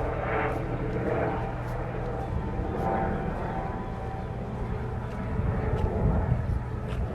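Steady drone of a distant aircraft engine overhead, a hum with several fixed pitches over a low rumble.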